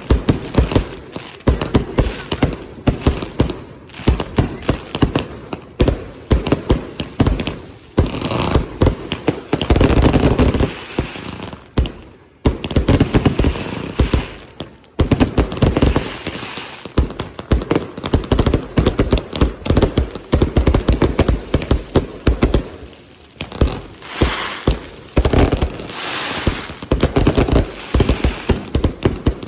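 Aerial firework cakes firing: a continuous string of sharp bangs and crackling reports, several a second, with denser volleys about a third of the way in and again near the end.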